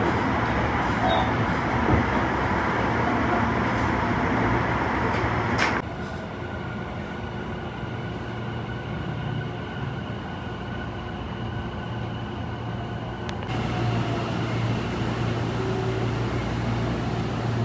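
Tobu 50090-series electric train running, a steady rumble of wheels on rails. About six seconds in it drops abruptly to a quieter hum with a faint steady whine, then grows louder again near the end.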